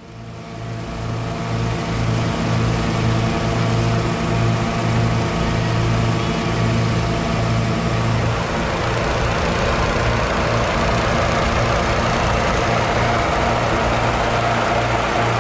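An engine running steadily with a low hum, fading in over the first couple of seconds.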